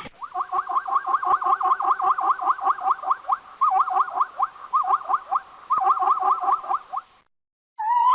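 Zebra calling: a fast, even run of high yelping notes, about six a second, broken by short pauses and stopping about seven seconds in.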